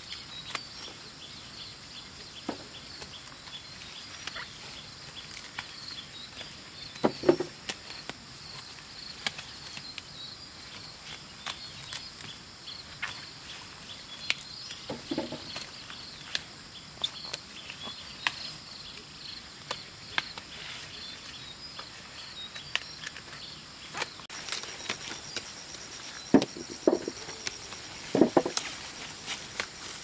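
Insects chirping steadily in a high, pulsing trill, with scattered clicks and rustles and a few dull thuds, the loudest about seven seconds in and in a cluster near the end.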